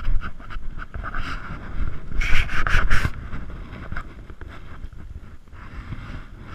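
Wind rumbling on the camera microphone, with a burst of rustling and scraping about two to three seconds in, as of the camera brushing against clothing or scrub.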